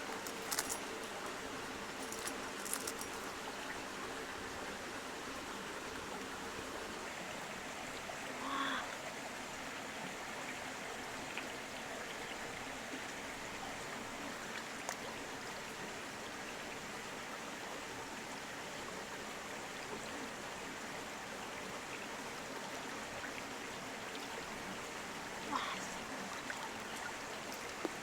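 River water flowing steadily, with a few brief clicks and knocks.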